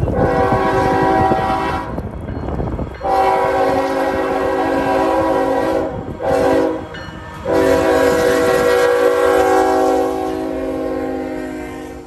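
A Norfolk Southern freight locomotive's multi-note air horn sounds the grade-crossing signal: long, long, short, long. A low locomotive rumble runs under the first blast.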